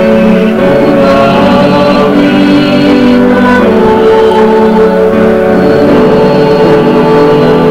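Instrumental church hymn music with sustained chords that change about halfway through.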